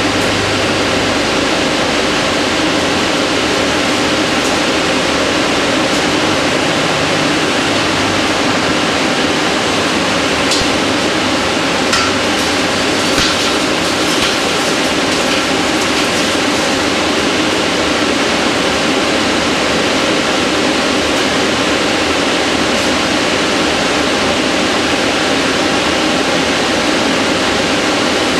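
Victor Taichung Vturn-V24W vertical turning center machining a wheel: steady, loud running and cutting noise, with a cluster of sharp ticks about ten to sixteen seconds in.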